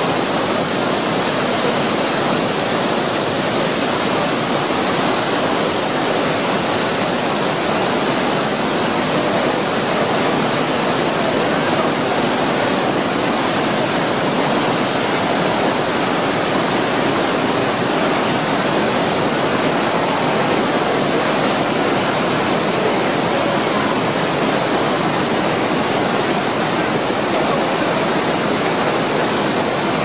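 Iguazu Falls: a great mass of water falling and crashing, a loud, steady rushing noise with no let-up.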